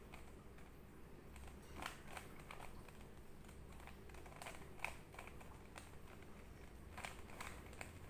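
Plastic 3x3 Rubik's cube being twisted by hand: faint, irregular clicks and clacks as its layers turn, with a few sharper clicks about two, five and seven seconds in.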